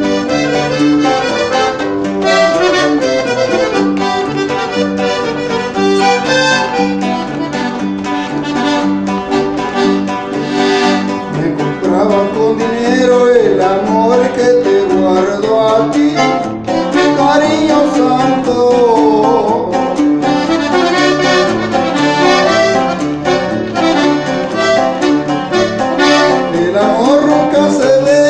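Norteño-style instrumental: an accordion plays the melody over a strummed bajo sexto keeping a steady rhythm.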